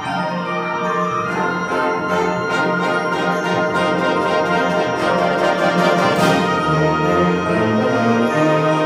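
A concert band of brass and woodwinds plays held chords over a steady beat of sharp percussion strikes. A bright crash swells about six seconds in, low notes come in near the end, and the band grows gradually louder.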